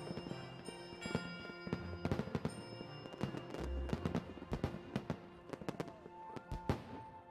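Fireworks display: many sharp bangs and crackles in quick, irregular succession, over background music with long held notes.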